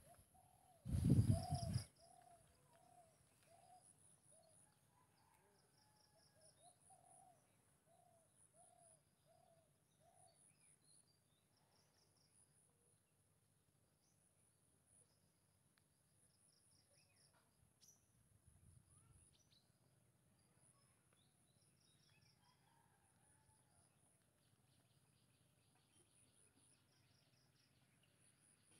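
Faint bird and insect background: a bird repeats a short note about twice a second for the first ten seconds or so, over a thin high insect chirring and scattered high chirps. A brief low thud about a second in is the loudest sound.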